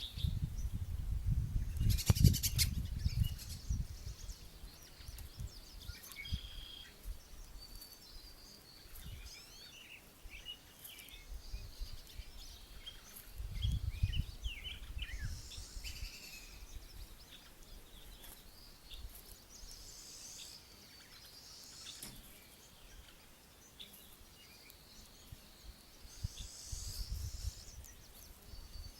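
Small songbirds chirping and singing in short, scattered phrases around a backyard feeder. Low gusts of wind buffet the microphone at the start, midway and near the end, and there is one sharp click about two seconds in.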